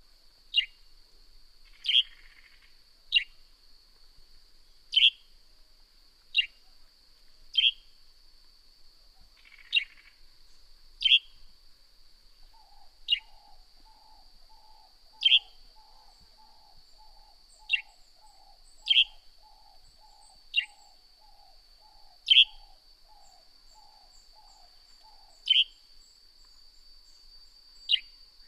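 Northern grey-headed sparrow giving single sharp chirps again and again, one every second or two, each a quick downward note. Beneath them runs a steady high-pitched hum, and through the middle a lower, faster series of pulsed notes, about two a second.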